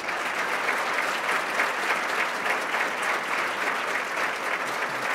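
Audience applauding, a steady dense clapping that starts suddenly and holds at an even level.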